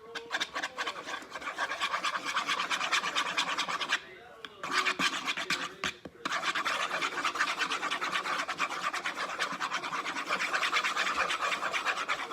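Spoon beating eggs and milk in a bowl: a fast, continuous run of scraping clicks against the bowl, breaking briefly about four seconds in and again near six seconds.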